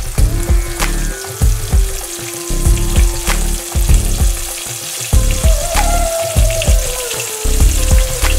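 A floured Bangamary fish fillet shallow-frying in hot vegetable oil in a small pan: the oil sizzles steadily, with frequent crackles and pops.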